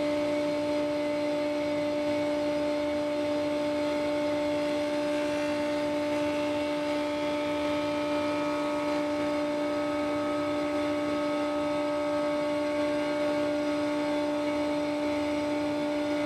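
Felder Hammer K3 sliding table saw running with a dado cutter as a plywood panel is fed through to cut a dado: a steady hum at a constant pitch with a light cutting hiss over it.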